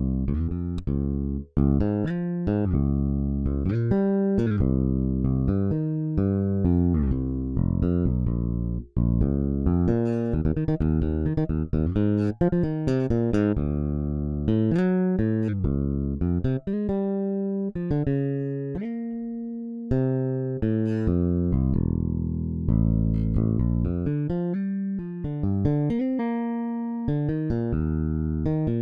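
Electric bass guitar playing gospel-style bass lines from a bass software instrument's MIDI patterns: melodic plucked runs and held notes, with brief breaks between phrases.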